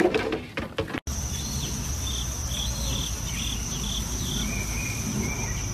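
Insects trilling steadily on a lawn, one unbroken high note, with a faint series of repeated chirps over a constant low rumble. In the first second, before that, a few sharp knocks.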